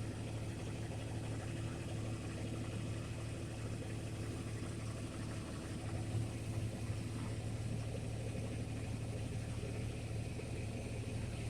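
A motor running steadily with a low, even hum, swelling slightly about six seconds in.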